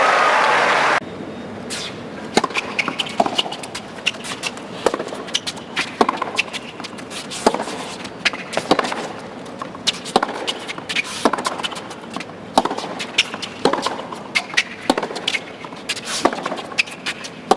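Tennis rally: racquets striking the ball about every 1.2 seconds, back and forth between the two players, with fainter ball bounces on the hard court in between. A burst of applause at the start cuts off abruptly about a second in.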